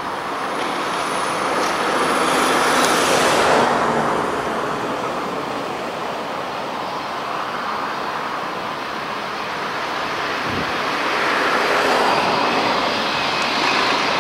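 Airbus A320-232's IAE V2500 jet engines running at low taxi thrust as the airliner rolls slowly and turns. The steady rushing whine swells a few seconds in, eases off, then grows louder again near the end as the engines swing round toward the listener.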